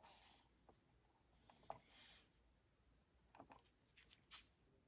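Near silence broken by a few faint clicks, scattered in small groups, from the Kasa HS220 smart dimmer switch's buttons being pressed to test it.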